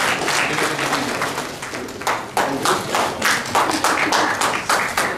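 Audience applause that thins out over the first two seconds, then turns into steady rhythmic clapping in unison, about three claps a second.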